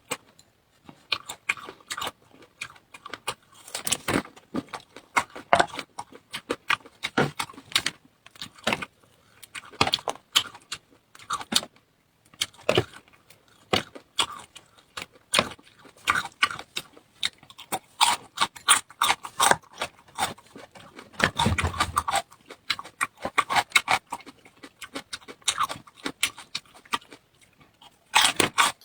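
Close-miked eating: a person chewing with wet mouth clicks, smacks and crunches, irregular and quick, with one longer, louder stretch about two-thirds of the way through.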